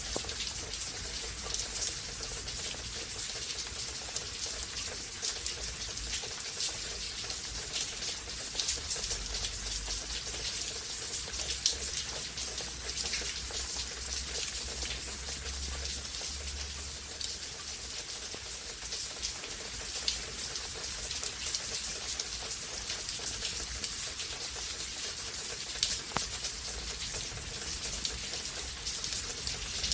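Steady rain falling, an even hiss with many small drop impacts spattering throughout.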